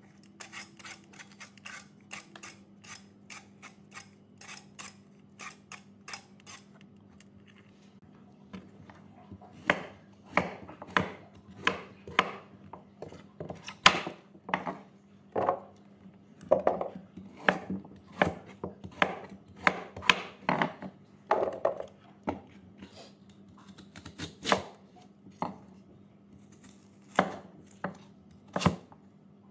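A cleaver slicing carrot and lotus root on a wooden chopping board: sharp knocks of the blade hitting the board, about one a second, starting about ten seconds in. Before that, quick light clicking and scraping of fresh lotus root being peeled by hand.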